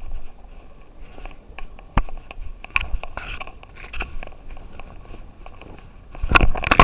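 Irregular close-up crackling and sharp clicks at a cat's collar camera as the cat moves, with a quick loud cluster of clicks near the end.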